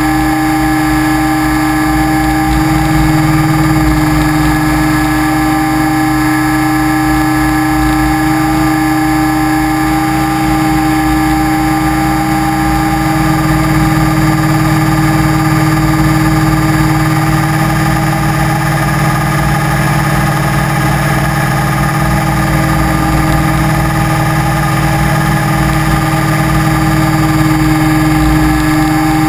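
Steady drone of an FPV model aircraft's motor and propeller, heard up close from on board, holding a nearly constant pitch, with a slight change in the low rumble about halfway through.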